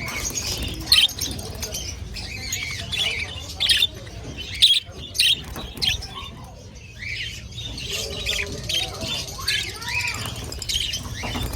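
A crowd of small market birds chirping and squawking, many short, sharp calls overlapping throughout, with a few louder squawks standing out.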